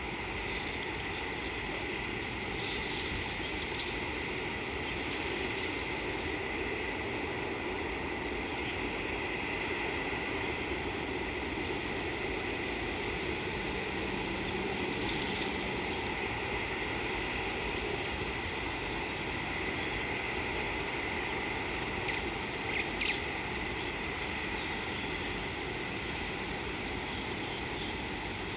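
High, short insect chirps repeating about once a second over a steady background hiss of the bush.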